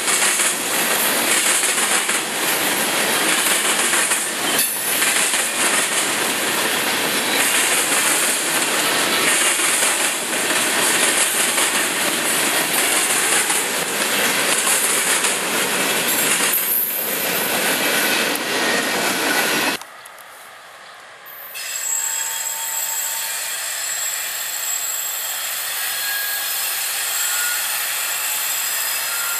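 Freight cars rolling past at close range: a loud, steady rush and rattle of steel wheels on rail. It cuts off abruptly about twenty seconds in. A quieter scene follows with an approaching CSX locomotive and faint thin high whines.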